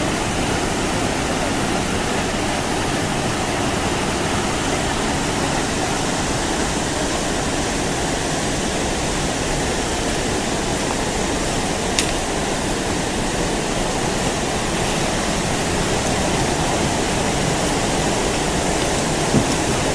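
A waterfall's white water rushing in a steady, even wash of noise. Two brief knocks cut through it, one about twelve seconds in and one near the end.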